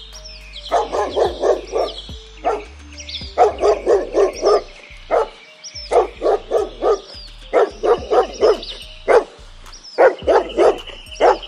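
A dog barking in quick runs of four to six barks, about five a second, with single barks between the runs.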